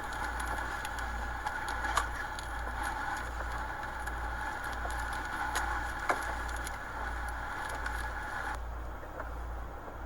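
Hurricane wind buffeting the microphone in a pulsing low rumble over a steady hiss, with scattered ticks and two sharp knocks about two and six seconds in.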